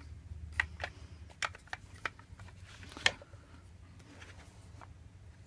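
Light, irregular clicks and taps of Kel-Tec RFB rifle parts being handled and fitted together, about half a dozen in the first three seconds, then fainter handling noise.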